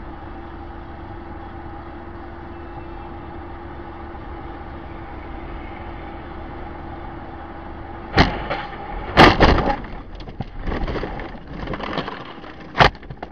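Steady engine and road hum from inside a car. About eight seconds in, a sudden collision follows: a hard impact, then the loudest crash a second later, then crunching and clattering as the windshield cracks, with one more sharp bang near the end.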